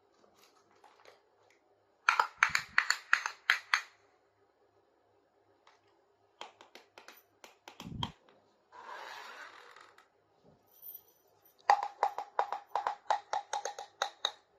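Small plastic toy kitchen pieces handled by hand, clicking and tapping together in two quick runs of sharp clicks, with a few scattered clicks between them and a short rustle.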